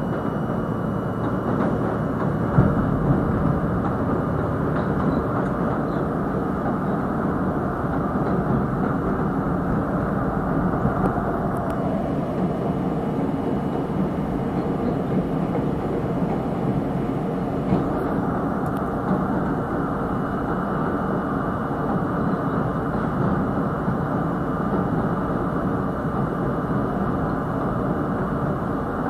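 R32 subway car running steadily over the Williamsburg Bridge tracks, a continuous rumble of wheels on rail heard through the open front railfan window. Its higher hiss dulls for several seconds midway, then returns.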